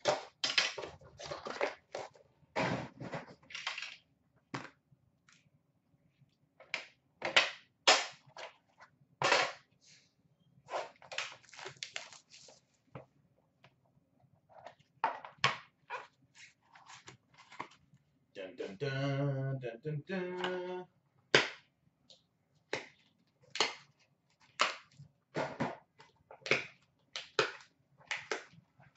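Hands handling a metal hockey card tin and its cards: a scattered string of sharp clicks, taps and rustles as the tin is opened and the cards are taken out and set down on glass. A short low murmur of a voice comes about two-thirds of the way through.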